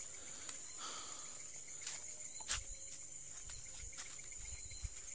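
Forest insects chirring at night in a steady high tone, with scattered faint clicks and a few soft low thuds in the second half.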